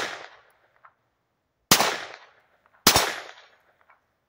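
Two gunshots from a GSG 1911-22 pistol firing .22 Long Rifle, a little over a second apart, each a sharp crack trailing off over about half a second. It opens on the fading tail of a shot fired just before.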